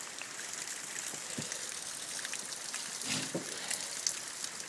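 Steady rain falling, with water trickling and dripping, and a few light knocks about three and four seconds in.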